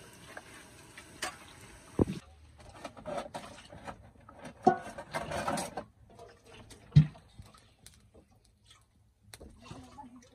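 Scattered knocks and clatter of metal cooking pots and containers being handled, with a sharp knock about seven seconds in the loudest, and a stretch of rustling and clatter just before it.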